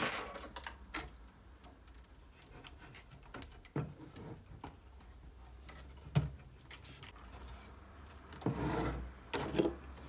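Handling noise from a desktop PC's steel case and internal cables: scattered clicks and knocks, the sharpest about six seconds in, then a longer scraping rustle near the end as the case is shifted and turned on the wooden desk.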